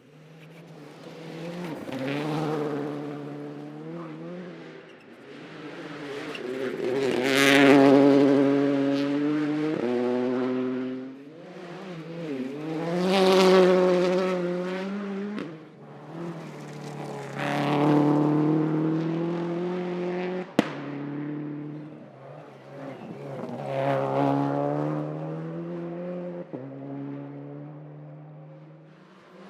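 Rally car engines at full throttle, swelling and fading in about five loud surges, the pitch climbing through each gear and dropping sharply at every shift. One sharp crack about two-thirds of the way through.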